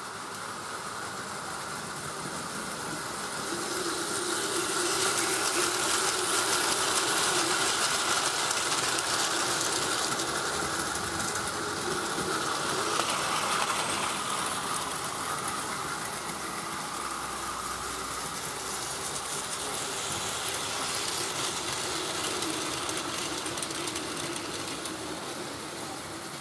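Battery-powered Plarail toy train running on plastic track: the motor's whine and the clatter of its wheels over the track joints. The sound swells as the train nears and passes, loudest a few seconds in through the middle, then fades and swells again near the end.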